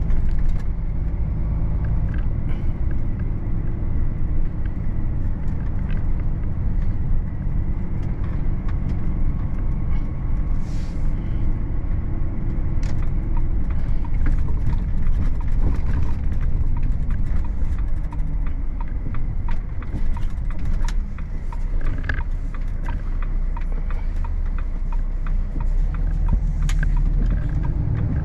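Volvo FH 540 truck on the move, heard from inside the cab: the steady low rumble of its 13-litre six-cylinder diesel and road noise while cruising.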